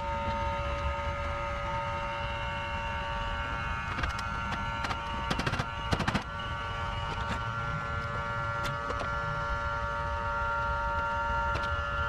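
Steady machine hum at several fixed pitches, with a cluster of sharp clicks and taps from hand tools between about four and six seconds in.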